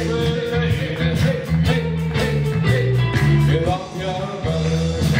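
Live rock band playing: electric guitars over bass and drums with a steady beat.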